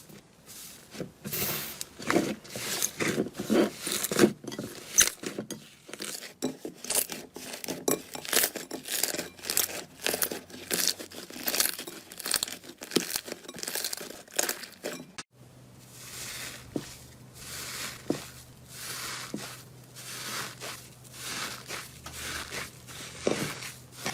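Slime being squeezed and stretched by hand, giving dense, irregular crackles and pops. About fifteen seconds in, the sound changes abruptly to softer crackling over a faint low hum.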